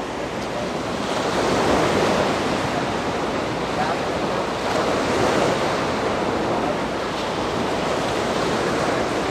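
Surf washing onto a sandy beach, a steady rush that swells twice, with some wind on the microphone.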